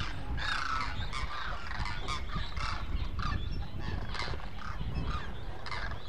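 A flock of demoiselle cranes calling, many short overlapping calls, over a steady low rumble.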